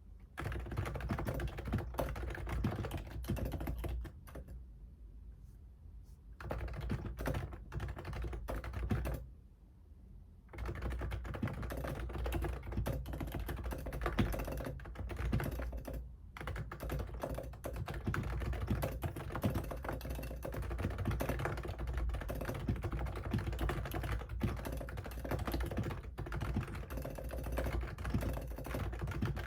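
Fast typing on a computer keyboard: steady runs of key clicks, broken by two short pauses about four and nine seconds in.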